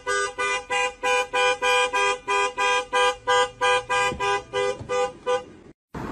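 Car alarm sounding through the horn: a two-tone car horn blaring in rapid, even pulses, about three a second, stopping about five and a half seconds in.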